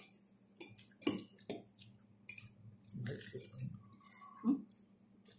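Metal fork clinking and scraping on a ceramic plate while twirling noodles, with sharp clicks about a second in, followed by the soft mouth sounds of eating noodles.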